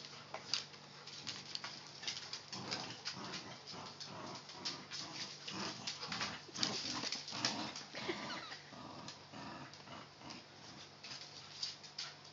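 A bulldog and a smaller dog tugging on a rope toy: playful growling mixed with quick, irregular clicks and scuffles of claws on a hardwood floor.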